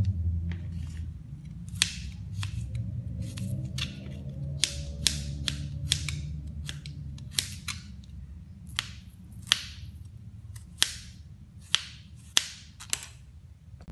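Kitchen knife slicing a peeled garlic clove thinly on a plastic cutting board: a run of sharp, irregular taps as the blade hits the board, roughly one or two a second.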